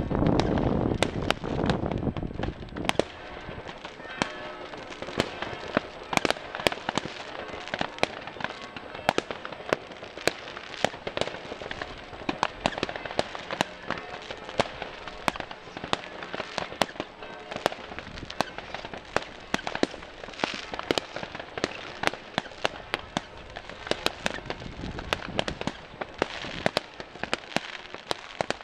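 Fireworks going off: a heavy low boom fading over the first two seconds, then a continuous stream of sharp bangs and crackles, many overlapping, several a second, with some louder than the rest.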